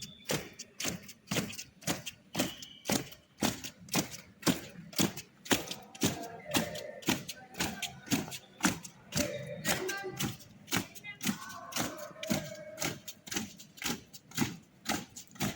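Cadets' feet striking the ground in step during drill, a steady run of sharp thuds about two to three a second, with faint voices partway through.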